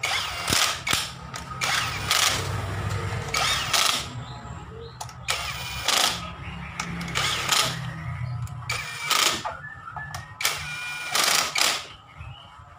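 Cordless drill with a socket extension running in a dozen or so short bursts, driving in the bolts of a Honda Vario scooter's CVT cover.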